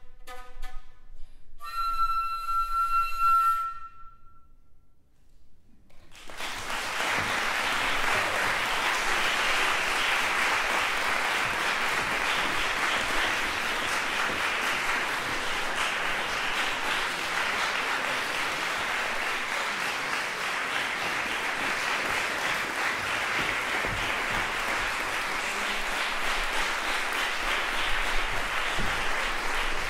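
A solo flute plays its last notes and ends on a long held high note; after a brief pause an audience applauds steadily for the rest of the time.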